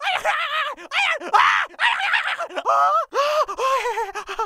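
A cartoon beaver character's voice making a quick string of short, wordless vocal noises whose pitch bends up and down. One of them slides upward about three seconds in, and a wavering one comes near the end.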